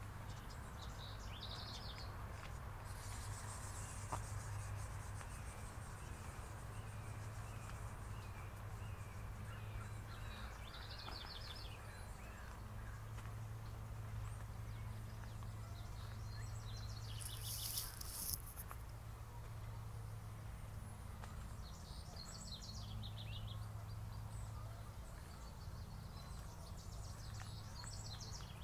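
Birds calling outdoors in short scattered bursts over a steady low hum, with one bird repeating a short chirp about twice a second through the first third and a brief louder high burst about two-thirds of the way in.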